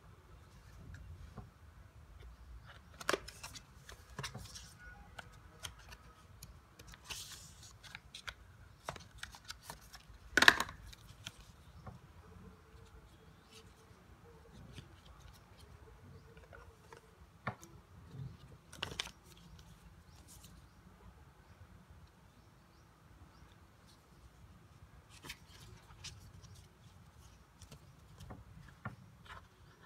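A cardboard earbud box and its paper inserts being handled and opened by hand: scattered rustles, taps and clicks of card and paper, the loudest a sharp knock about ten seconds in.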